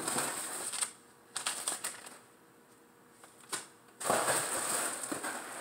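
Packaging rustling and crinkling as a jersey is unwrapped by hand: a burst of rustling, a quiet stretch broken by a few sharp crackles, then steady rustling again from about four seconds in.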